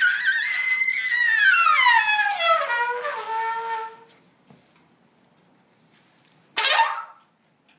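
Free-jazz trumpet playing a long falling glissando that slides down from high to low over about four seconds and fades out; after a pause comes one short, sharp blast near the end.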